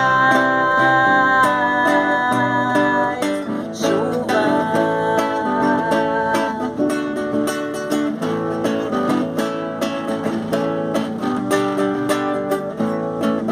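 Acoustic guitar strummed as a song accompaniment, with a woman's voice holding a long sung note at the start and another about four seconds in.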